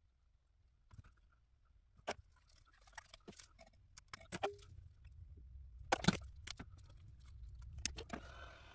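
Scattered clicks and taps of tools and parts being handled while replacing a capacitor in a vintage Philco radio chassis; the loudest click comes about six seconds in. A steady hum with hiss starts near the end.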